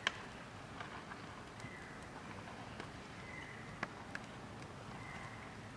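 Open wood fire crackling: sharp pops about once a second, the strongest right at the start and a little before four seconds in, over a soft steady hiss of the flames.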